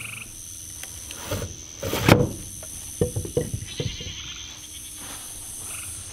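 Small wooden pop door of a chicken coop being pushed shut by hand: a few knocks and scrapes, the loudest about two seconds in and more about three seconds in. Crickets and other insects trill steadily underneath.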